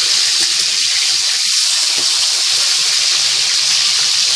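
Pieces of katla fish sizzling steadily as they fry in hot mustard oil, a loud, even hiss.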